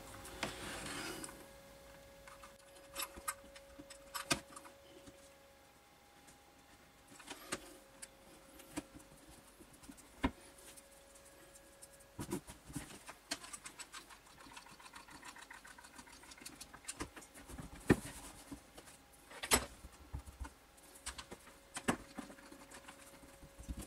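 Quiet handling sounds of hands and a small hot glue gun working a mesh mat down inside a plastic tub: scattered small clicks, taps and rustles, with a few sharper knocks. A faint steady hum comes and goes underneath.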